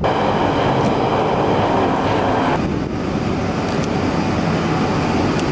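London Underground tube train noise: a loud, steady rumble inside a carriage running through a tunnel, cutting about halfway through to the slightly quieter sound of the train at a platform.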